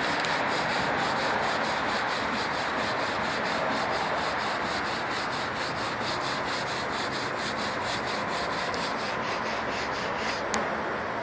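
Hand brush scrubbing wood cleaner into a weathered wooden board, with quick back-and-forth strokes at about four a second. The scrubbing stops near the end and is followed by a single click.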